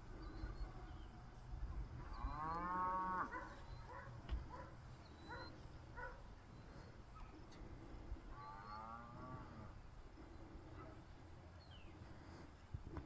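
Cattle mooing twice, a call of about a second at around two seconds in and another at around eight seconds in, with a few shorter calls between and faint bird chirps.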